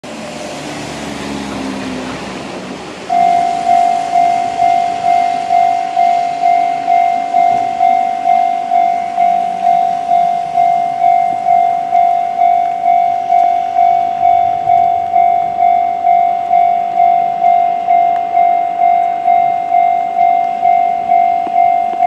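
A car passes over the wet crossing. About three seconds in, a Japanese railway level-crossing alarm starts: a Chichibu-type electronic crossing bell sounding an evenly repeating ringing tone, about one and a half strikes a second, warning of an approaching train.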